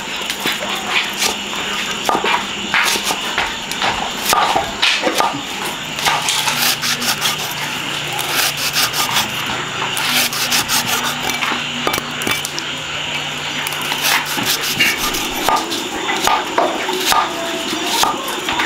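Cleaver chopping lemongrass stalks on a thick wooden block: many quick, sharp knocks of the blade through the stalks into the wood, coming in fast runs, thickest in the middle.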